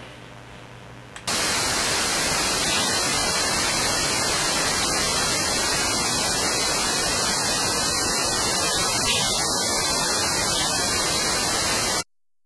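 Loud, steady static hiss that starts suddenly about a second in and cuts off abruptly near the end: the webcam's audio capture glitching out into noise.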